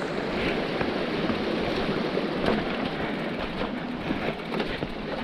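Electric mountain bike rolling down a rocky dirt trail: a steady rush of tyre noise with small knocks and rattles scattered through it.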